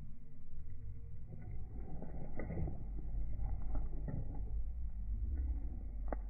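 Hooked tilapia thrashing and splashing at the surface of the pond as it is played on the line, in irregular short splashes from about a second in. Heard muffled over a low rumble.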